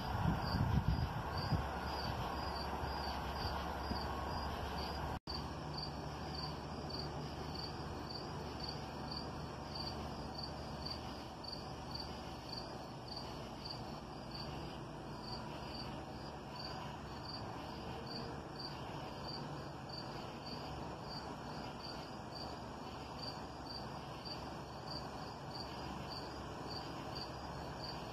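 Crickets chirping steadily: a high-pitched, regular chirp repeating about twice a second. A low rumble in the first few seconds dies away about five seconds in.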